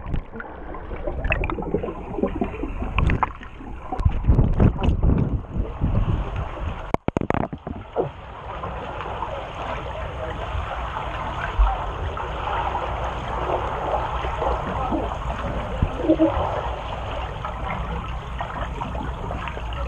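Swimming-pool water splashing and churning in irregular loud bursts, then from about eight seconds in a steady rushing, bubbling wash of water, muffled as heard by a GoPro camera held underwater.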